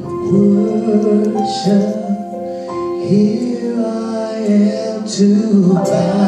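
Slow gospel worship music: a singer holds long notes over sustained chords that change every second or so.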